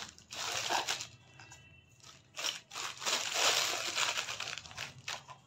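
Small plastic packet crinkling and rustling as it is handled, in irregular crackly bursts that are loudest in the second half.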